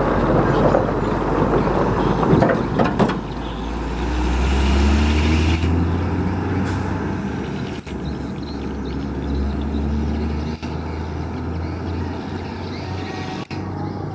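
Hino 500 truck's diesel engine as the truck pulls past and away, with a loud hiss that cuts off about three seconds in. The engine pitch then rises as it accelerates and settles into a steady low run.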